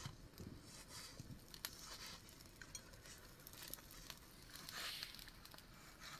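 Large kitchen knife cutting tomatoes on a plate: faint, irregular soft taps and cuts.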